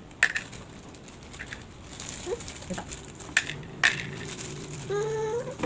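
Small seashells clicking and knocking against a plastic bowl and tabletop as they are handled: a few sharp separate clicks, the loudest near the start and twice more past the middle. A short voice sound rising in pitch near the end.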